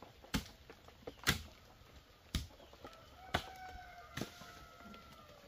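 A rooster crows once, a long drawn-out call that starts about halfway through and fades near the end. Sharp knocks sound about once a second throughout.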